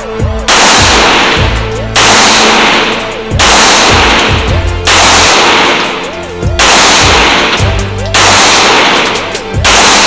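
Glock pistol fired seven times in slow, steady succession, about one shot every second and a half. Each shot rings out with a long echo in the indoor range, over background music.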